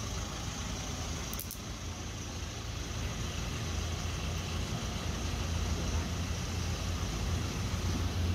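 Steady low mechanical hum under an even wash of background noise.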